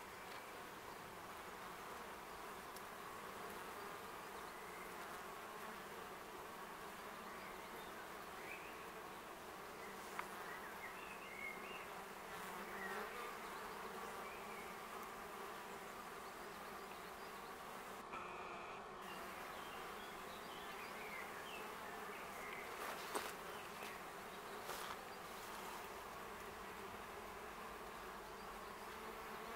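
Steady buzzing hum of a wild honeybee colony at its nest entrance in a tree hollow, with many bees flying in and out: a strong, busy colony. Faint high chirps come and go, and a sharp tick sounds about two-thirds of the way through.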